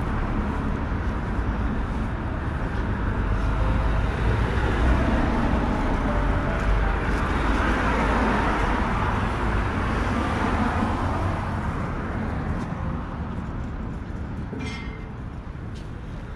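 Road traffic on a busy street, a steady rumble of passing vehicles that swells in the middle and fades slowly toward the end.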